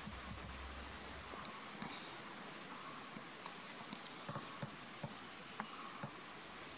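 Outdoor forest ambience: a steady hiss with short high-pitched chirps now and then and scattered faint ticks and taps.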